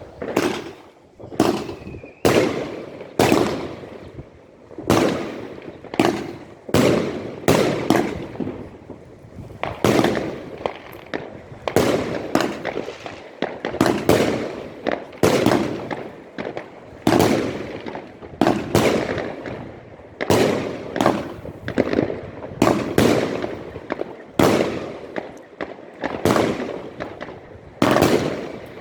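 A 19-shot 25 mm fireworks cake firing: a long, steady string of loud bangs from launches and aerial bursts, about one a second, each ringing out briefly.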